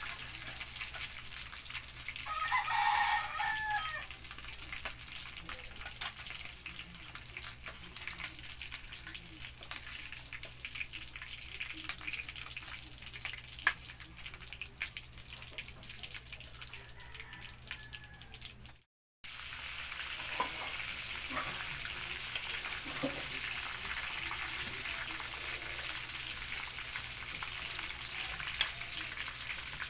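Crispy-mix-coated chicken bones deep-frying in oil in a wok, a steady sizzle full of small crackling pops. A rooster crows once about three seconds in, and the sound cuts out for a moment a little past halfway.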